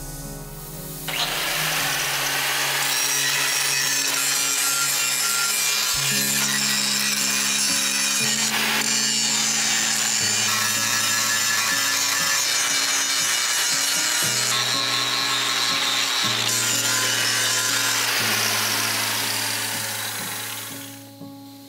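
Steady harsh noise of a power tool working metal, starting about a second in and fading out near the end, with background music underneath.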